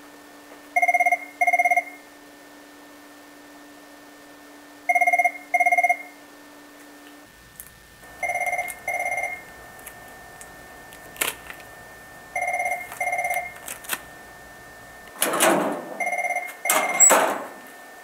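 Telephone ringing with an electronic double ring: pairs of short rings, one pair about every four seconds, five times. Near the end, louder noisy rustling or scraping sounds overlap the last rings.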